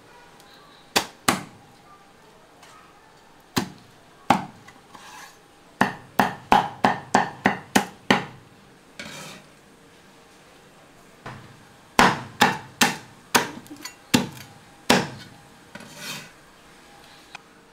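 Heavy Chinese cleaver chopping a poached chicken into pieces on a thick round wooden chopping block: sharp chops, some single and some in quick runs of about four a second, with short pauses between runs.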